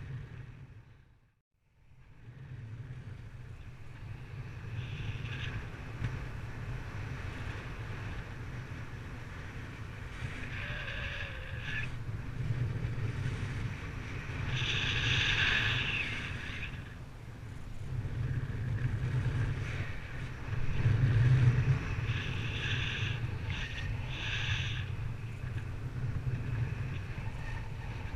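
Wind buffeting the microphone in flight: a steady low rumble with gusts that swell and fade every few seconds, the loudest about 15 s and 21 s in, and a brief lull about a second and a half in.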